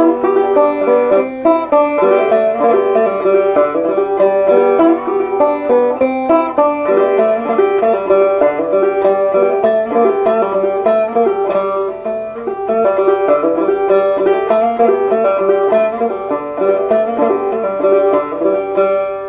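Open-back banjo played solo: a brisk, continuous run of plucked notes, with the last notes ringing out near the end.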